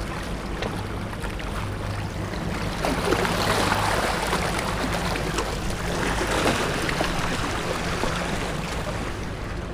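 Small waves washing and splashing among the boulders of a rock jetty, swelling twice, over a faint low steady hum.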